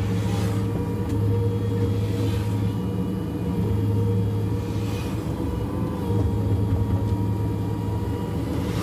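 Diesel engine of a Cat 305.5E2 mini excavator running steadily while it digs, with a brief hissing swell a few times.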